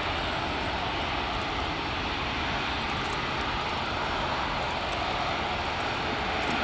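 Airbus A350-900's Rolls-Royce Trent XWB turbofan engines running at low taxi thrust, a steady rushing hiss, as the airliner taxis and turns onto the runway for take-off.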